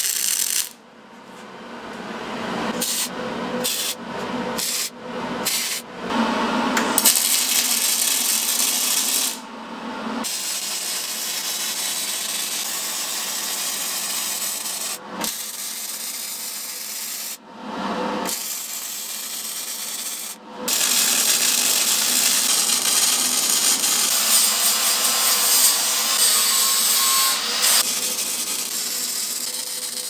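MIG welder arc crackling and sizzling as it runs beads on heavy steel plate. It comes in short bursts with brief stops over the first several seconds, then in longer unbroken runs, with the loudest run starting about two thirds of the way in.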